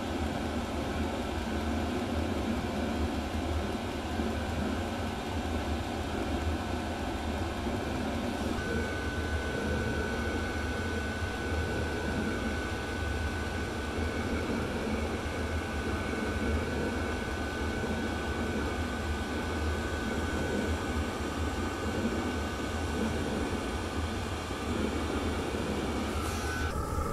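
Chinese 8 kW diesel air heater running on E85 ethanol: a steady rushing hum from its blower fan and burner. A thin, steady high whine joins about eight seconds in and lasts until near the end.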